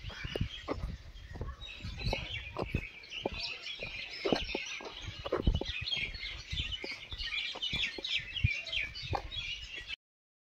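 Many birds chirping at once, a dense chorus of short high calls, over irregular low thumps from footsteps and handling while walking. The sound cuts out abruptly near the end.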